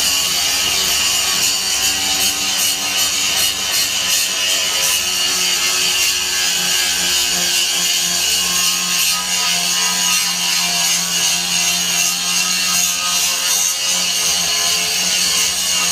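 Angle grinder grinding heavy rust off a quarter-inch steel plate, running steadily under load with a continuous hissing whine.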